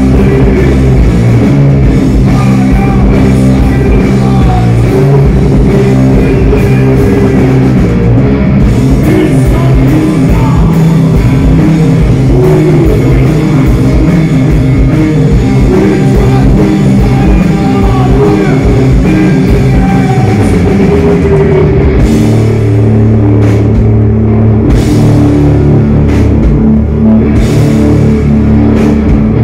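A heavy rock band playing loud and live: electric guitars, bass guitar and a drum kit, continuous through the whole stretch.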